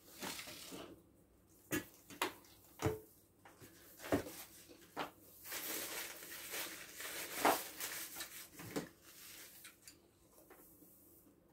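Eating at a table: scattered light clicks and knocks of a fork and fingers on plates, with a stretch of paper-tissue rustling in the middle.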